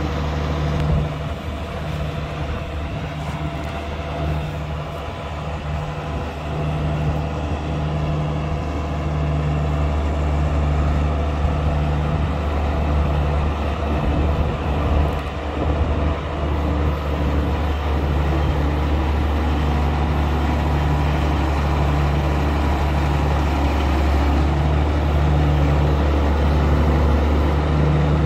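Steiger articulated four-wheel-drive tractor's diesel engine running with a steady low drone as the tractor drives and turns.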